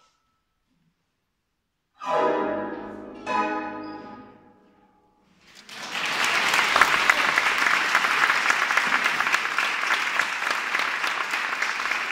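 Concert harp plays the two closing chords of the piece, about a second apart, each ringing out and fading. Then the audience breaks into steady applause.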